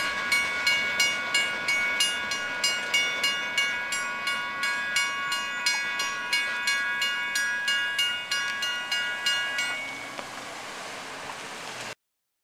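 Railroad grade-crossing warning bell ringing at about two to three strikes a second while the crossing gates lift. It stops about ten seconds in, leaving a fainter steady sound, and everything cuts off suddenly near the end.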